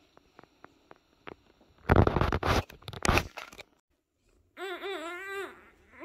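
Faint clicks of a baby handling plastic toys, then about a second and a half of loud rustling and handling noise, then near the end a baby's wavering, sing-song vocalization lasting about a second.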